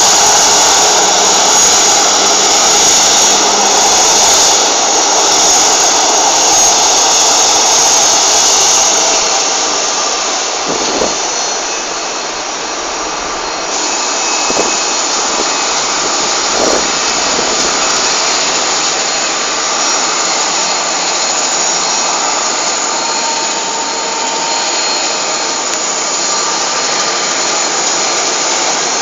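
Airliner jet engines running on the apron at taxi power: a loud, steady rush of noise with a faint high whine, easing a little about twelve seconds in.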